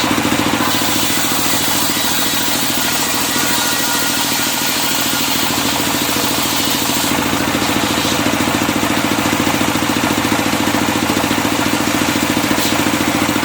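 Engine-driven circular sawmill running steadily at constant speed, with a fast even engine pulse under a high hiss. The hiss fades about a second in and returns about seven seconds in.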